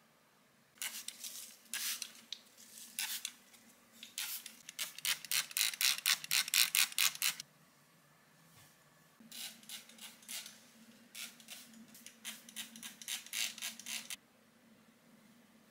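Hand trigger spray bottle misting houseplants: a run of short squirts of hiss, several a second at their quickest. It stops for about two seconds near the middle, then a second run of squirts follows. A faint steady hum lies underneath.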